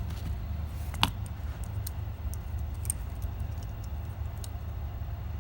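Scattered small sharp clicks and taps of tools and small phone parts being handled, the loudest about a second in, over a steady low hum.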